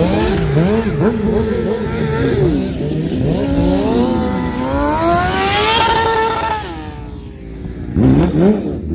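Stunt motorcycle engine revving hard, its pitch swinging up and down in quick blips. About five seconds in there is one long climb in revs that drops off sharply; after a short lull, sharp revs return near the end.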